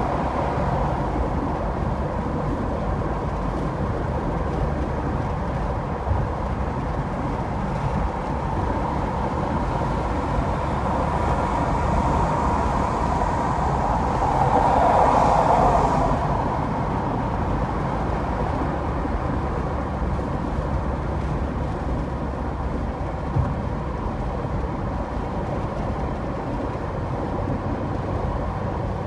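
Steady road and tyre noise of a car driving on an interstate highway, with a low rumble; it swells louder for a couple of seconds about halfway through.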